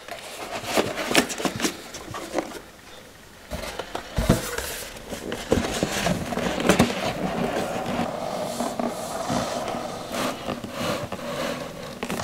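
Cardboard board-game pieces being packed away by hand: paper and cardboard sliding and scraping, with scattered light knocks and taps.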